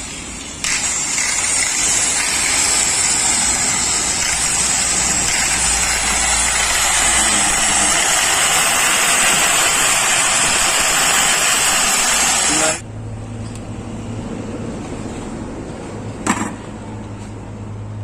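Old AC electric grinder running at full speed, loud, with a high whine, a noisy machine whose fault the owner puts down to its carbon brushes. It stops abruptly about thirteen seconds in, leaving a low hum and a single click.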